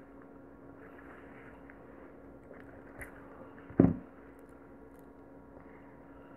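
Faint handling sounds of hand beading, pearls being stitched onto a flip-flop strap with needle and nylon thread, over a low steady hum. A small click about three seconds in and a short, loud thump just before four seconds.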